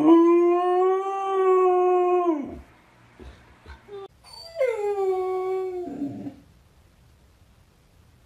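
Samoyed howling: one long, steady howl of about two and a half seconds that drops off at its end, then a second, shorter howl about four and a half seconds in that slides down in pitch.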